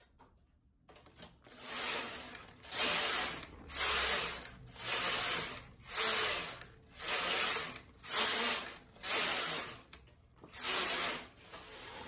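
Carriage of a Brother domestic knitting machine pushed back and forth across the needle bed, knitting row after row. There are about nine passes, roughly one a second, each a short burst of sliding mechanical noise, with a slightly longer break before the last.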